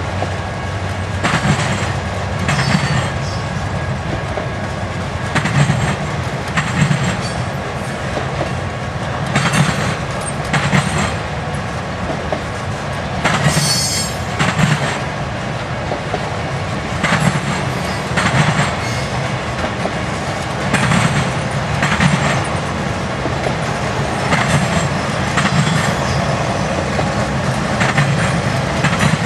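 A Norfolk Southern freight train's cars rolling past over a steady rumble, the wheels clacking over the rail joints in pairs every few seconds. A brief high-pitched wheel squeal comes about halfway through.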